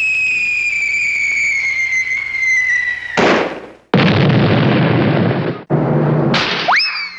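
Cartoon sound effects: a long whistle that slowly falls in pitch for about three seconds, like a dropping bomb, then a short burst and a loud explosion-like blast of noise lasting about two seconds. Near the end comes a quick upward swoop.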